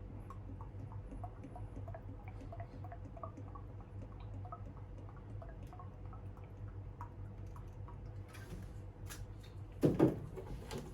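Hardener being poured into a plastic paint mixing cup, with many small drips and trickles, then a loud knock near the end as something is set down. A steady low hum runs underneath.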